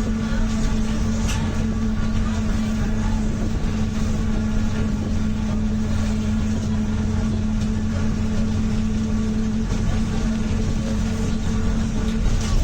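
Mercedes-Benz OF-1722M bus under way, its diesel engine running with a steady whining tone from the differential. The whine shifts slightly in pitch about ten seconds in.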